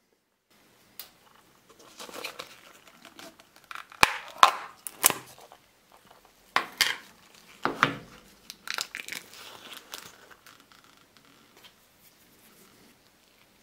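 Thin plastic film being peeled off the top of a tub of paste and crinkled: irregular rustling with several sharp crackles, loudest in the middle and dying away near the end.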